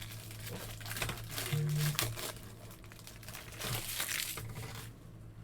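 Foil wrapper of a trading-card pack crinkling and tearing open, in bursts about a second in and again around four seconds in.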